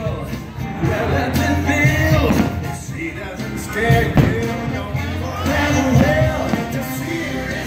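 Fireworks show soundtrack: a song with singing over a band accompaniment.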